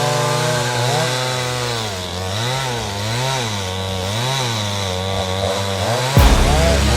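Two-stroke chainsaws cutting into a large tree trunk, the engine pitch rising and falling over and over as the saw bogs under the cut and recovers. A sudden loud low thud near the end.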